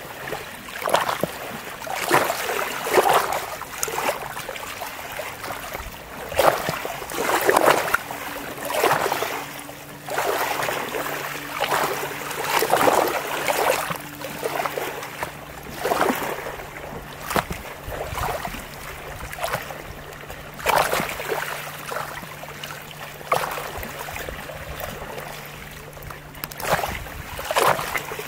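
Small lake waves lapping and splashing close by, in irregular surges every second or two. A faint steady low hum runs underneath from about eight seconds in.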